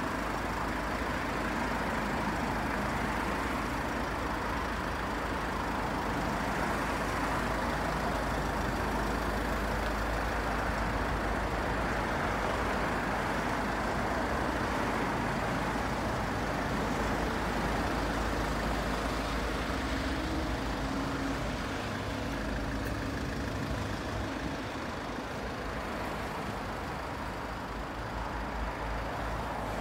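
Steady low rumble of motor-vehicle noise, easing slightly about two-thirds of the way through.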